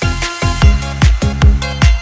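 Electronic dance remix music with a heavy kick drum about every 0.4 seconds under sustained synth chords. A bright cymbal-like wash opens it as the beat comes back in.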